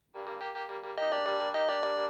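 Samsung SGH-T100 mobile phone playing a polyphonic ringtone, a melody of sustained electronic notes in several voices that starts a moment in and steps up in pitch about a second in.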